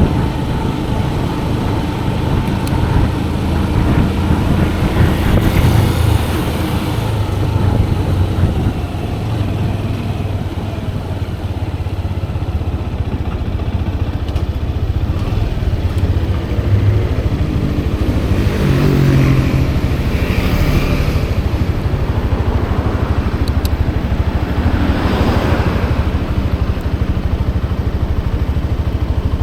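Motorcycle engine running while riding, with road and wind noise; the engine note swells and sweeps twice in the later part.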